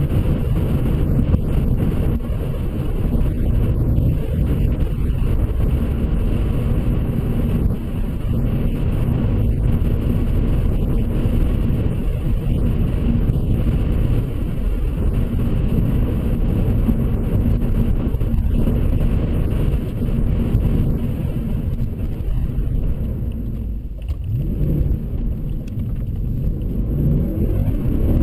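A motor vehicle running steadily under way, a continuous low rumble with a faint steady engine tone. It eases off briefly about 24 seconds in, then picks up again.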